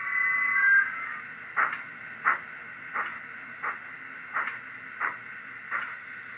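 Steam locomotive sound from the factory-fitted ESU LokSound Micro V5 decoder in a Bachmann GWR 94XX pannier tank model, pulling away slowly on a small throttle opening: a burst of hiss in the first second, then slow, even exhaust chuffs about one every 0.7 seconds.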